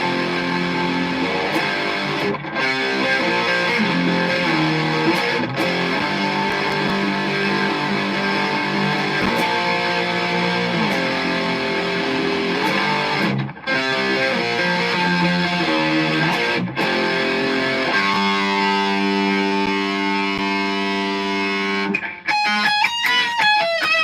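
Distorted electric guitar playing a riff of held chords that change every second or so, breaking off briefly a few times. Near the end it switches to quick, higher notes.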